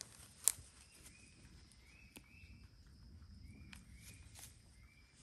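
Goat grazing close by: scattered sharp clicks and snaps as it crops grass and shifts its feet, the loudest about half a second in. Short chirps repeat faintly in the background.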